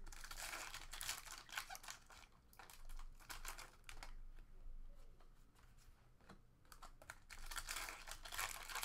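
A foil trading-card pack being torn open and the cards slid and flicked through by hand: crinkling and papery rustling in irregular bursts.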